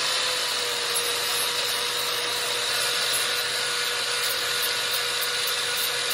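Electric angle grinder with an orange abrasive disc running at steady full speed, grinding the end of a broken sawmill bandsaw blade to prepare it for welding. It holds a constant whine over a steady grinding hiss.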